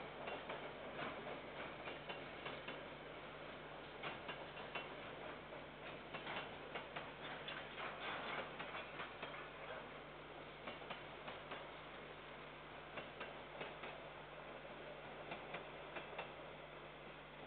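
Distant freight train passing, heard as faint, irregular clicking and ticking of its wheels over the rails. A steady low hum sits underneath.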